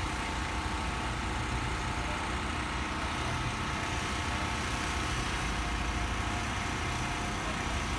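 An engine running steadily at an even speed, a constant low rumble with a faint hum.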